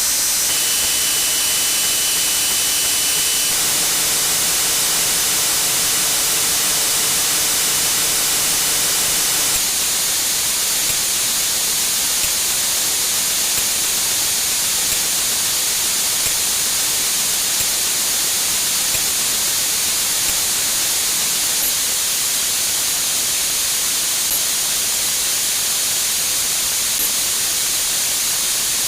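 Dense, steady hiss like static, made by a great many copies of one sound effect playing at once. Faint steady tones show through for the first ten seconds or so, then give way to an even wall of noise.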